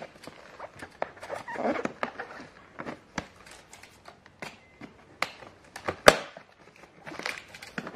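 Plastic wrapping on a hard-shell suitcase being handled and rubbed by hand: scattered crinkles and small clicks, with one sharp snap about six seconds in.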